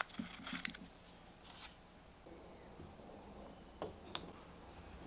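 Faint clicks and light scraping of a small screw being turned with an Allen key and the mounting plate being handled, with a couple of sharper clicks near the end.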